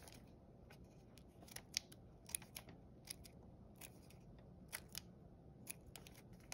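Small scissors snipping through folded paper: a series of short, sharp snips at irregular intervals, quiet.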